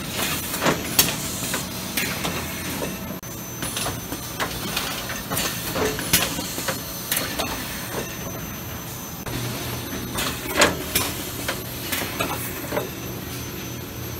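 Industrial production machinery running: a steady low hum with irregular clanks, clicks and short hisses of air, the hum growing louder about nine seconds in.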